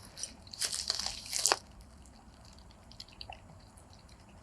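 Dog eating wet pasta with turkey from a container: a run of wet smacking clicks for about a second, then a few faint ones.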